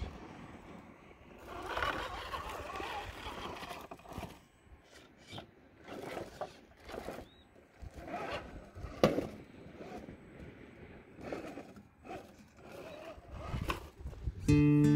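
Scale RC rock crawler (Axial SCX10 II) working over rocks: irregular scrapes and short knocks of its tyres and chassis on stone. Louder strummed acoustic guitar music comes in just before the end.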